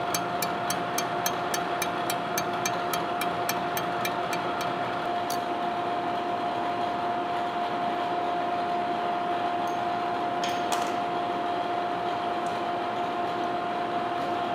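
Horizontal boring mill facing cast iron with a spinning single-point cutter: a steady whine from the running machine, with a sharp tick about four times a second as the cutter strikes the table on each turn of a light interrupted cut. The ticking stops about five seconds in while the machine keeps running, and a couple of faint clicks follow near the end.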